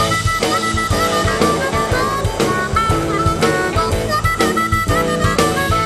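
Background instrumental music: a melody of held notes over a steady drum beat.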